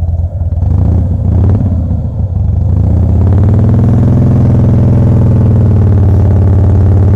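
2007 Harley-Davidson Softail Custom's V-twin engine idling, uneven and stumbling for the first couple of seconds, then settling into a steady idle about three seconds in. It is running rough on fuel dosed with Seafoam, which the owner blames on bad gas.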